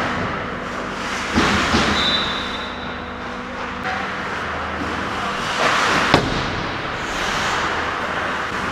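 Ice hockey play on an indoor rink: skates scraping the ice with sharp stick and puck cracks about a second and a half in and again about six seconds in.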